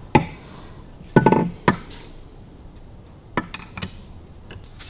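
Steel engine parts clinking against each other by hand in the cam gear case of a Harley-Davidson WLC 45 engine: scattered light taps, with a louder, briefly ringing clink about a second in. The parts are being refitted with one shim fewer to check the cam end play.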